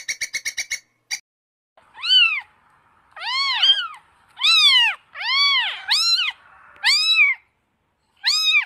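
Young kitten mewing: about eight high mews that each rise and fall in pitch, some coming in quick pairs. It opens with a rapid chatter of short chirps from a gray squirrel, under a second long, and a single click.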